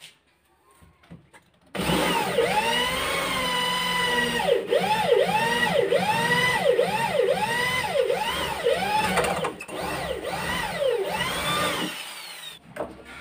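Electric drill boring into the edge of a wooden door for a doorknob latch. It starts about two seconds in with a steady whine, then its pitch sags and recovers about twice a second as the bit bites into the wood, and it stops near the end.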